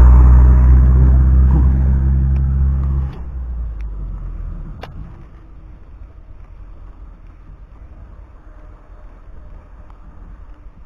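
A motor vehicle's engine passing close by, loud at first and fading as it moves away, dropping off sharply about three seconds in and leaving a low rumble that dies out soon after. A few light clicks follow over faint outdoor background.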